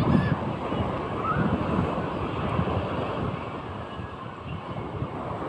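Sea waves washing, with wind buffeting the microphone in irregular low gusts.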